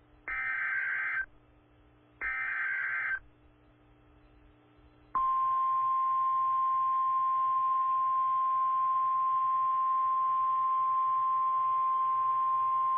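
Emergency Alert System SAME header data: two short bursts of warbling digital tones, each about a second long. About five seconds in, the steady single-pitch NOAA Weather Radio warning alert tone starts and holds unchanged, marking the start of a new severe thunderstorm warning. A faint low hum sits underneath.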